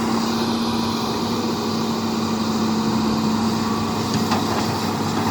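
Hitachi excavator's diesel engine running steadily with a constant hum, with a few faint knocks near the end.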